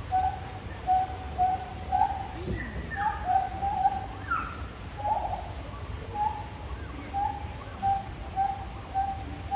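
A long series of short hooting calls at one pitch, about two a second, with scattered higher chirps and sweeping calls among them.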